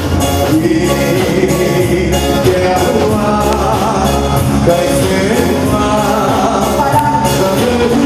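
Soca chutney music played live by a band: a singer over a steady dance beat and bass.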